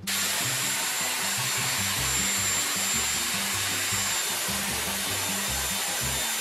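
Dyson Airwrap hair styler blowing air: a steady hiss with a thin high whine, cutting in suddenly at the start.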